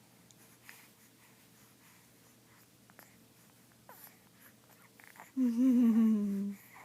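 Baby cooing: one drawn-out vocal sound of about a second, wavering and sliding slightly down in pitch, about five seconds in after a quiet stretch.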